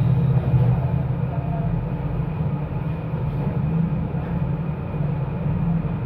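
Steady low rumbling background noise with a faint hum.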